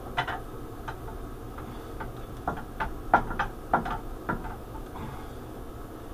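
A dozen or so light, irregular knocks and clicks, loudest about three seconds in, from a soft-face mallet tapping at the Y-axis ball screw assembly of a Tormach CNC mill while the worn ball screw is being worked out.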